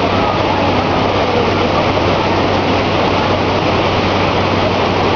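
Loud, steady rush of Maria Cristina Falls, a tall waterfall, crashing into its plunge pool.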